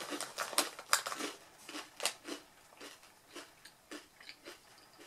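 Close-up crunching of potato chips being chewed: sharp crunches about three a second, loudest in the first two seconds and growing fainter after that.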